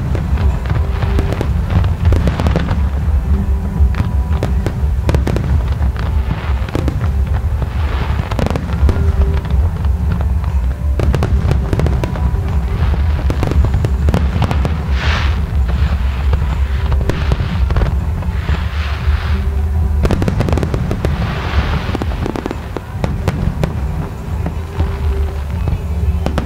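Aerial fireworks display: a loud, continuous run of bangs and crackles in quick succession over a deep rumble.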